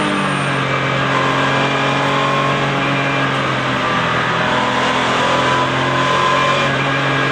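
Porsche 996 Cup car's flat-six racing engine heard from inside the cockpit at speed. The revs drop just at the start as the driver lifts or changes gear, then the engine pulls steadily and begins to climb again near the end.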